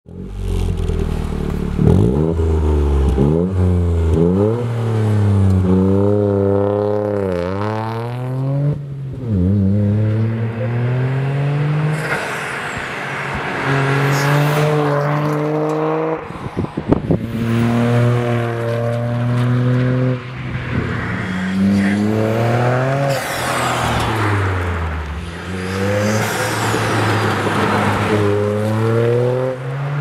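Toyota GR Yaris 1.6-litre turbocharged three-cylinder engine pulling hard through the gears, running through an Eventuri carbon intake and a Bastuck non-resonated, non-valved exhaust with the particulate filter removed. The engine note climbs with each pull and drops at each upshift, over and over, with a brief run of sharp pops about halfway through.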